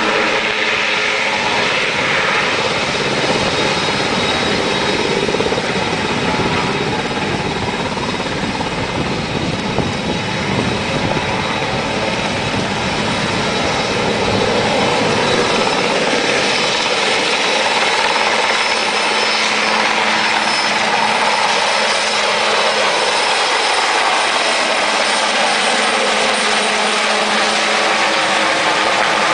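Sikorsky S-61 twin-turbine helicopter in low flight on departure: a steady, loud rotor chop with turbine whine. The deep rotor beat thins out about halfway through while the whine carries on.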